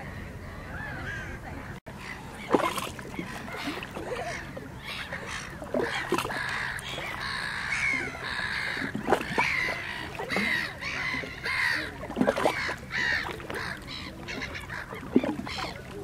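A flock of Bewick's swans (tundra swans) calling, many voices overlapping; the calling gets busier and louder from about two seconds in.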